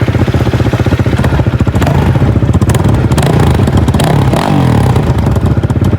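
Dirt bike engine running loud and steady, with a brief change in revs about four and a half seconds in.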